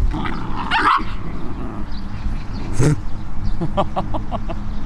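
Two Bichon Frisé dogs squabbling with each other, barking and yipping: one sharp bark about three seconds in, then a quick run of short yips.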